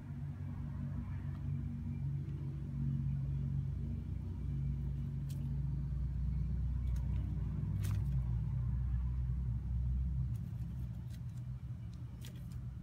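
A motor engine running with a low, steady hum. It grows louder through the middle and drops back about ten seconds in. A few faint clicks sound over it.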